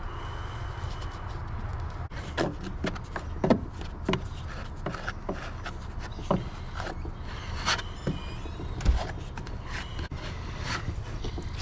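Scattered light clicks, taps and knocks from handling small objects while two-part marine epoxy is mixed, over a steady low rumble.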